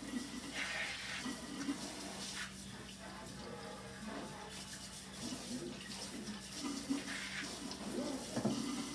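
Kitchen sink tap running steadily, rinsing paint off a hand mixer's beater.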